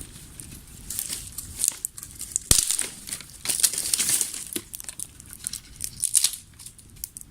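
Irregular dry crackling and rustling of leaves and twigs, with one sharp snap about two and a half seconds in.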